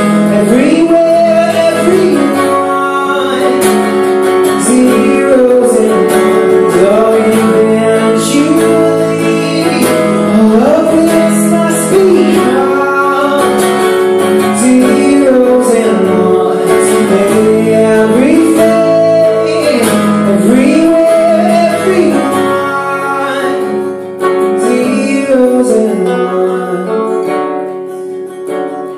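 Acoustic guitar strummed live, with a man singing over it.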